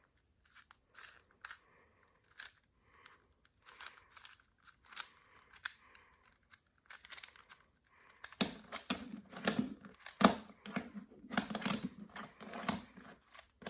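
A 3x3 Rubik's cube being scrambled by hand: quick, irregular clicking and clacking of its plastic layers turning, louder in the last five seconds.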